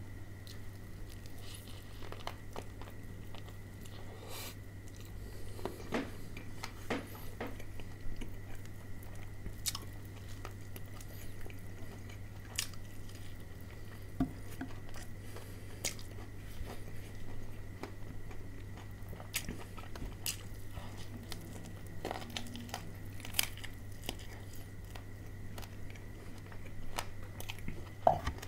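A person biting into and chewing crispy fried chicken up close, the breaded coating giving irregular crunches. A steady low electrical hum and a faint high whine run underneath.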